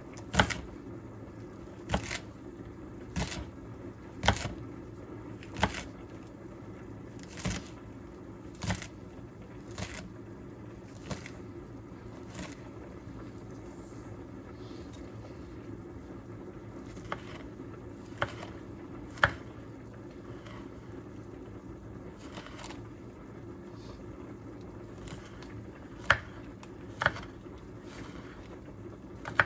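Knife chopping onion and celery on a cutting board: single sharp knocks about a second apart, thinning out in the second half, over a steady low hum.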